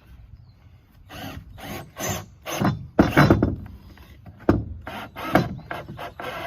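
Tool work on wood: a run of short rasping strokes, starting about a second in, coming a few a second and growing louder.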